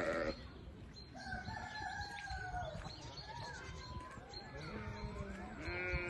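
A rooster crowing: one long call beginning about a second in, with further calls and a wavering bleat near the end.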